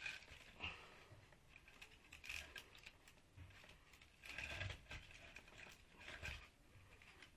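Near silence with a few faint scrapes and knocks, roughly one every two seconds, from hands handling a washing-machine motor as it is worked apart.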